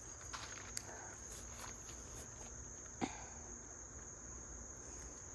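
Insects, crickets or the like, keep up a steady high-pitched chirring. A few soft knocks come in the first couple of seconds, and a single sharp click about three seconds in.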